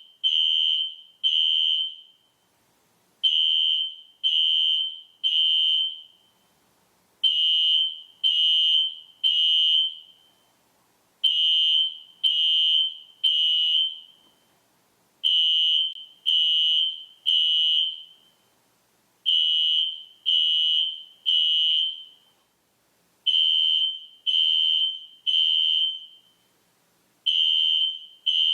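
System Sensor SpectrAlert Classic fire alarm horn sounding in the temporal-three evacuation code: three short high-pitched blasts, then a pause, repeating about every four seconds.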